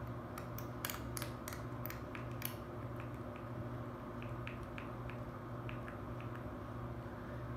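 A run of light, sharp clicks, about ten close together in the first two and a half seconds, then fainter, scattered clicks, over a steady low hum.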